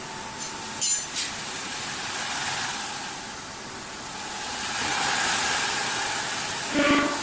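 Automatic CNC wood-turning lathe running with a steady mechanical hiss and hum that swells partway through. There are two or three short metallic clinks about a second in and a louder ringing clank near the end.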